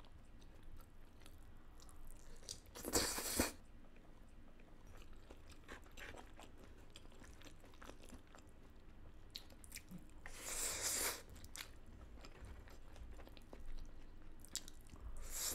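A person chewing and biting food close to the microphone, with crunchy bites about 3 seconds in and again a little after 10 seconds, and soft mouth clicks between them.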